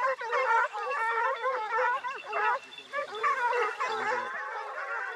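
A pack of Porcelaine hounds in full cry, many overlapping baying voices, running on wild boar they have just put up.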